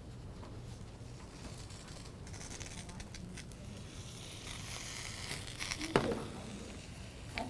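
Soft crinkling and rustling of handling at the stove, then one sharp metal clunk about six seconds in as a pot is set down on top of a skillet to press a quesadilla.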